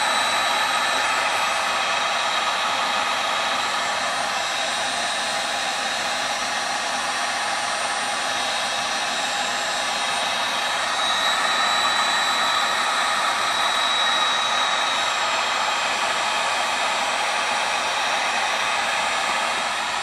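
Electric heat gun running steadily, blowing hot air onto heat-shrink tubing over a crimped battery cable terminal: an even rush of air with a faint high whine.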